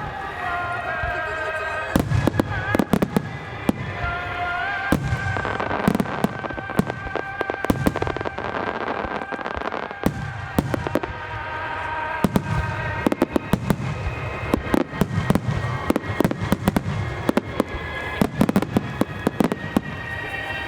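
Fireworks going off in quick succession: deep booming bursts mixed with sharp cracks and crackle, thickest in the second half, with music playing underneath.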